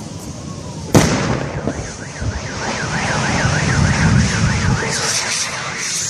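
A gas cylinder on a burning truck explodes with a sharp, loud bang about a second in. A car alarm then warbles up and down about four times a second, and a hiss rises near the end.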